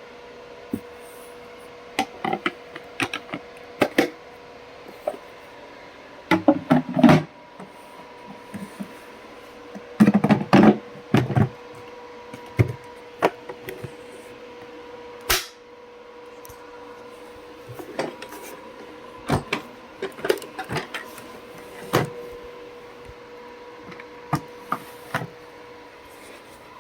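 Irregular clicks, knocks and clatter of hard objects being handled, loudest in clusters about six and ten seconds in, over a faint steady hum. No motor runs.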